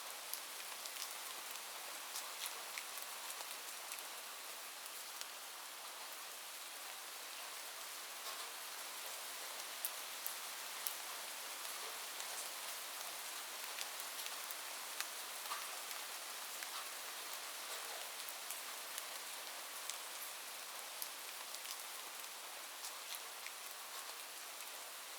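Light, gentle rain falling steadily, a soft even hiss dotted with many separate drop ticks hitting a surface.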